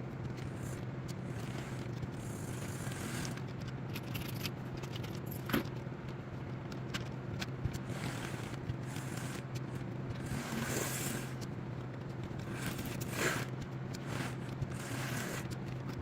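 HO scale model train running on layout track: a steady low hum with scattered clicks and short scraping sounds of wheels and couplers on the rails.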